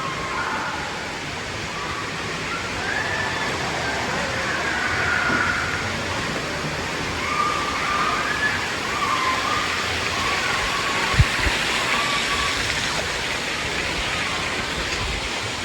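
Water park ambience: a steady rush of falling and splashing water with distant voices calling, and a single low thump about eleven seconds in.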